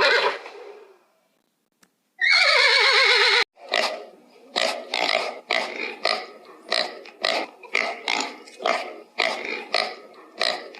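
A horse whinnying with a wavering pitch, cut off abruptly, followed by a run of short animal calls repeating about twice a second.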